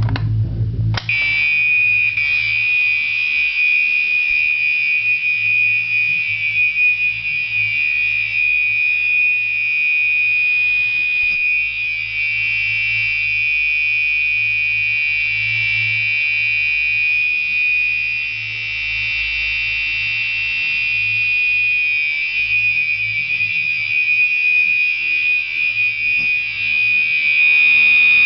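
Fire alarm horn set to the continuous horn code on high volume, coming on suddenly about a second in and sounding without a break as a steady, loud, high-pitched electronic tone.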